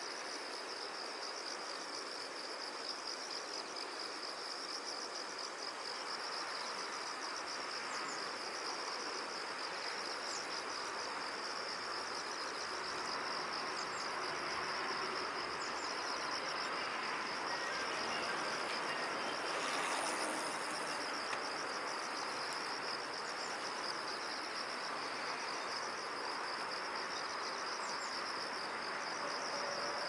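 A chorus of insects, crickets by the sound of it, trilling continuously as one high, rapidly pulsing note over a steady background hiss.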